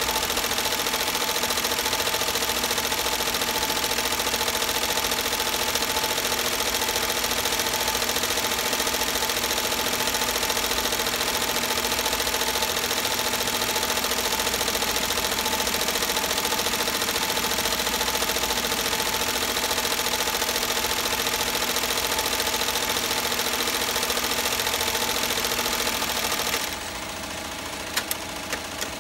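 Multi-needle commercial embroidery machine stitching a design into a knit beanie, running at a steady, even speed. Near the end the running sound drops away to a quieter hum, followed by a few sharp clicks.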